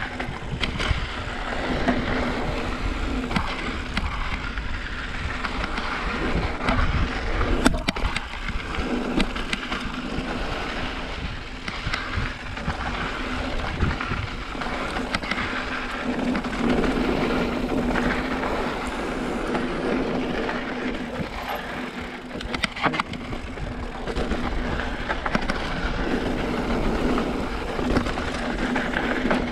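Mountain bike riding over a loose, rocky trail: a continuous rumble of tyres on rock and dirt, with scattered sharp knocks and rattles from the bike.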